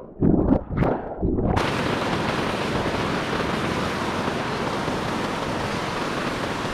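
Steady, even rush of flowing river water that starts abruptly about a second and a half in and cuts off suddenly at the end. Before it come a few short loud bursts.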